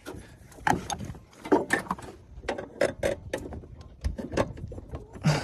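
Irregular metallic clicks and knocks of hands and tools working on a riding mower's deck, around its pulleys and belt.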